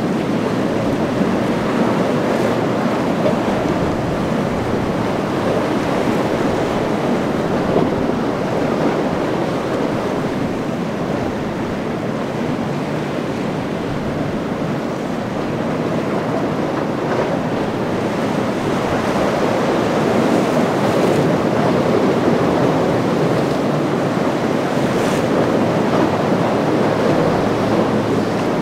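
Surf breaking and rushing in rough seas, with steady wind noise buffeting the microphone: a continuous, even roar.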